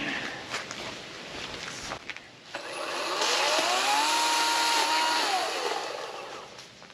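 A power saw's motor spins up, runs for about two seconds cutting branches, and winds back down, after a few light knocks and rustles.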